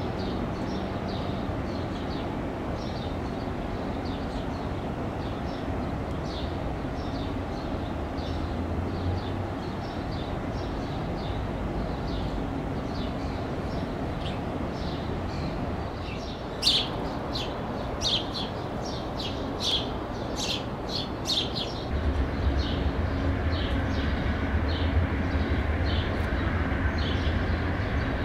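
A bird chirping over and over above a steady distant train rumble, with a louder run of sharp calls about two-thirds of the way in. Near the end the low drone of an approaching Amtrak GE Genesis diesel locomotive rises and grows louder.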